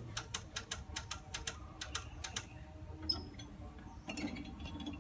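A rapid run of sharp clicks, about five a second, stopping about two and a half seconds in, followed by faint short high squeaks.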